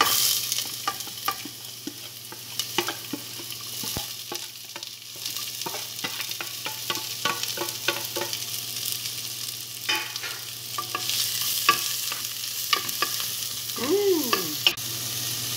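Chopped red onion going into hot olive oil with frying garlic and sizzling steadily, with a wooden spoon stirring and knocking against a nonstick pot in many short clicks.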